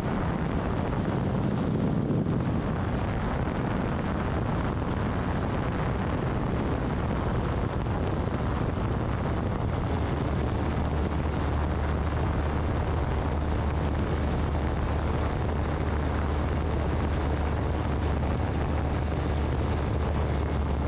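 FlightStar single-seat ultralight's engine and pusher propeller droning steadily in low-level flight, with wind rushing over the wing-mounted microphone.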